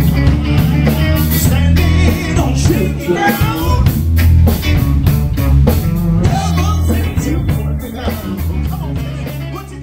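Live rock band playing: male lead vocals over drum kit, bass and electric guitar. The music fades down over the last couple of seconds.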